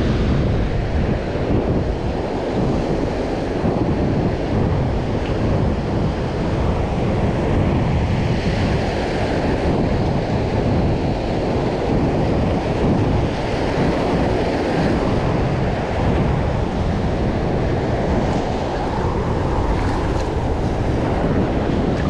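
Strong wind rumbling on the microphone, with a steady rushing noise and no distinct events.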